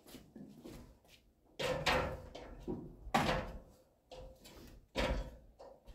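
Hammer driving nails through a metal joist hanger into an LVL rim board: three loud blows about a second and a half apart, each with a short ring, and lighter taps between.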